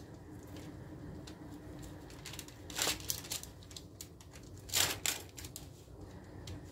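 Hands pressing and stretching oiled dough across a parchment-lined baking sheet: soft rustling of the paper and light taps, with two louder brushing crinkles about three and five seconds in.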